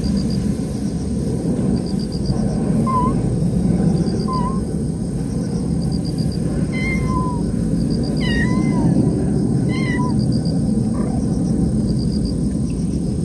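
A cat gives several short meows, spaced a second or two apart, starting about three seconds in, over a steady low background noise.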